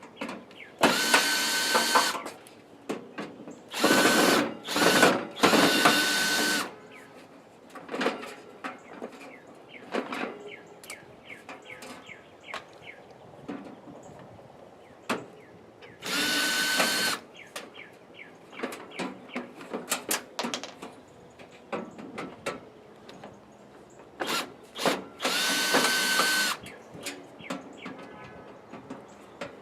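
Power drill running in about seven short bursts, each up to a second and a half, with a steady whine while it spins. Between runs come clinks and rattles as the toaster oven's metal parts are handled.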